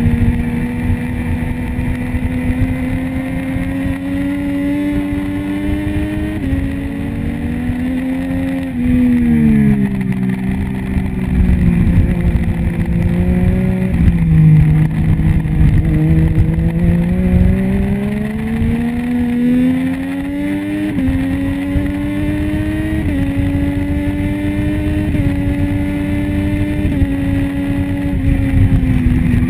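Triumph Street Triple's 675 cc three-cylinder engine at racing speed, heard from a camera mounted on the bike. The engine note climbs slowly, drops steeply about nine seconds in and stays low for a few seconds through a corner, then climbs again with short steps down in pitch as it changes up through the gears, and falls again at the very end.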